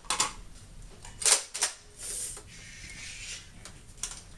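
Plastic clicks and clacks of a Nerf blaster being handled and primed, with a sharp, louder snap about a second in and a brief hiss after it.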